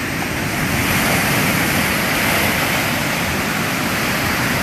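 Rough, storm-driven surf breaking on the shore: a steady rushing noise that swells slightly about a second in.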